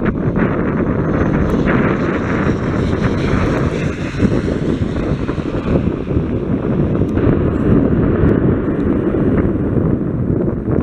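Jet engines of a Boeing 777 airliner as it rolls along the runway: a loud, steady rumble, with wind buffeting the microphone.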